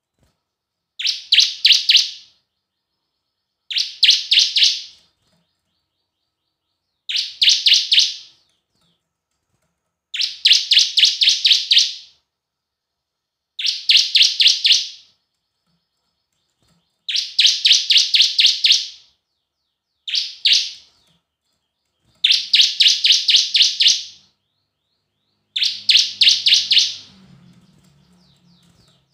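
Bar-winged prinia (ciblek) singing a lure song. Nine short bursts of rapid, sharp chipping notes, each burst a quick run of about five to eight notes, repeated every three seconds or so.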